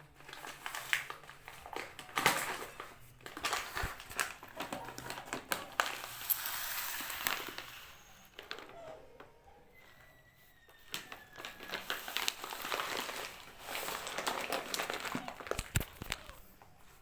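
Kittens playing, making crinkly rustling and scratching with light knocks and clicks that come and go irregularly, easing off for a few seconds in the middle.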